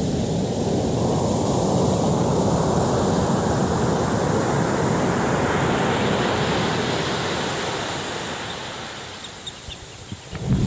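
Rushing roar of stormy wind and surf. It ebbs away over a couple of seconds near the end, then a loud surge returns sharply at the close.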